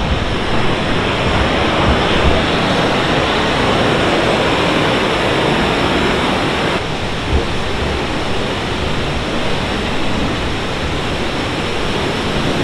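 Glacier-fed waterfall in a narrow canyon, water rushing and pouring in a loud, steady rush. The sound changes abruptly about seven seconds in.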